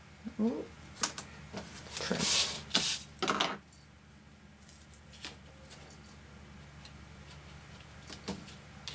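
Double-sided sticky strip tape being pulled off its roll, cut with scissors and laid along a cardstock edge: a short rising squeak, a few clicks, then rasping bursts between about two and three and a half seconds in.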